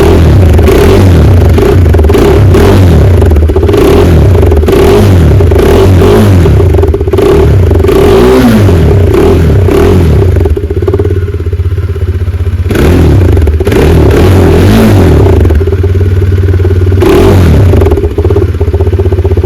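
Bajaj Dominar 400 motorcycle's single-cylinder engine revved hard again and again through its exhaust, each blip rising and falling. About halfway through it drops back to idle for a couple of seconds, then takes a few more revs before settling to idle.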